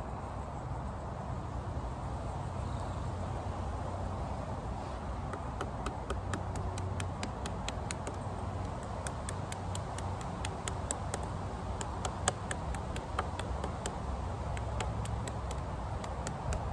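Green nettle stem being worked by hand against a wooden log: from about five seconds in, a run of sharp, irregular clicks and small cracks, several a second.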